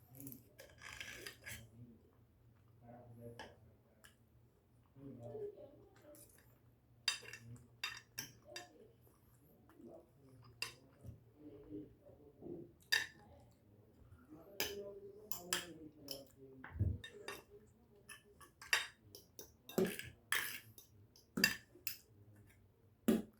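Cutlery clinking and scraping against a plate at irregular intervals during a meal, with quieter mouth and chewing sounds in between.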